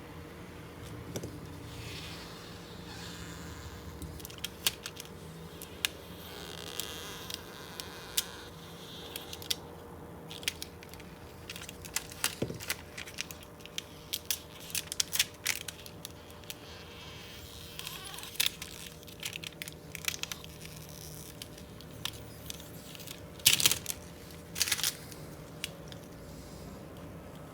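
Old polarizing film being peeled off an LG Gram laptop's LCD panel: irregular small crackles and clicks, with two louder tearing rasps near the end. A steady low hum runs underneath.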